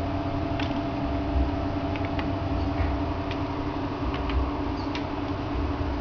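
A steady hum with a low rumble underneath, and about seven light clicks scattered through it.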